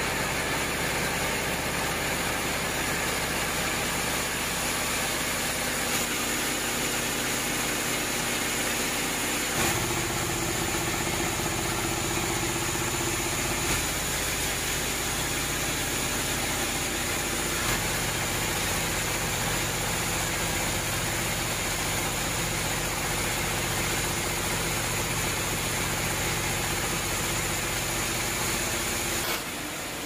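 Band sawmill cutting through a large mahogany log on its carriage: a loud, steady machine noise with a constant high whine. Its low hum changes about a third of the way in and again a little past halfway, and the sound drops suddenly just before the end.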